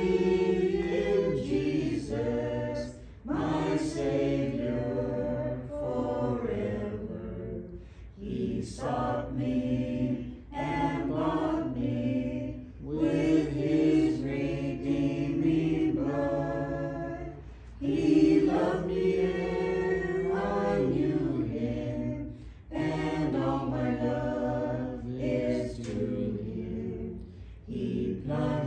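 A congregation singing a slow hymn together, in phrases a few seconds long with short pauses for breath between them.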